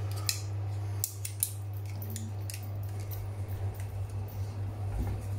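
A few light metallic clicks from poultry shears being handled and opened, over a steady low hum.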